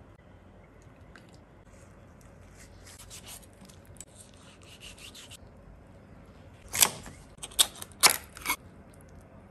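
A knife slicing soft seafood on a plastic cutting board with faint scraping, then about four loud, sharp crunches a little past halfway as a knife cuts through a spiny crab leg's shell.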